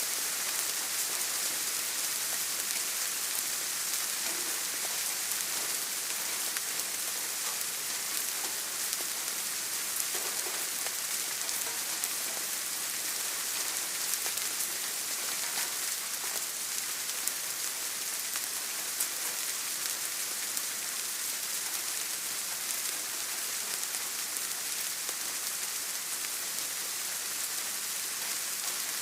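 Steady rain falling, an even hiss with scattered light patter of drops.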